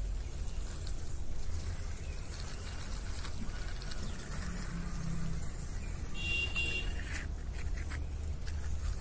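Small plastic toy car pushed by hand along a concrete ledge, its hard plastic wheels rolling over the rough surface over a steady low rumble. A short high-pitched chirp comes about six seconds in.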